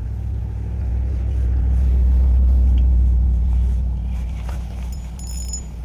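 A low rumble that swells over about two seconds and then fades, with a few faint high metallic clinks near the end.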